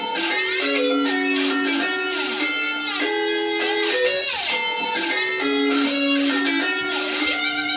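Guitar-led music playing steadily, with repeating picked notes.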